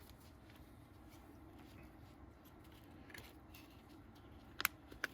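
Quiet handling of trading cards: faint light rustling and small ticks, then two short sharp clicks near the end.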